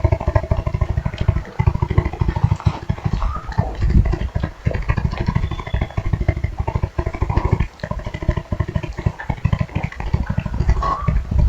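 Sound-designed growl for a giant wild-dog-like monster: a low, rapidly pulsing rumble with a few short breaks.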